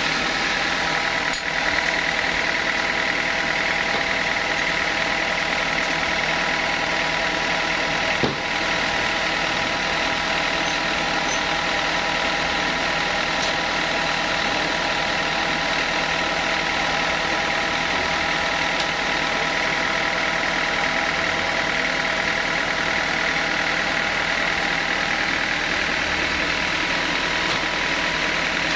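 Sawmill machinery running at a steady pitch, an even mechanical hum. A single sharp knock about eight seconds in.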